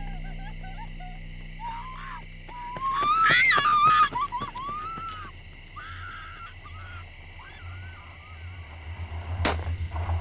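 Night ambience of steady, high insect chirring, with an animal's wavering, gliding calls that are loudest about three to four seconds in. Near the end a low engine rumble from the 1978 Chrysler Newport grows as the car rolls in, just after a sharp click.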